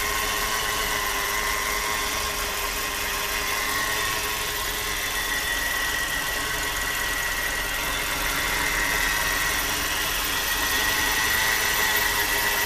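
Car engine idling with a steady high-pitched whine over it, a noise the owner suspects comes from the alternator belt tensioner pulley.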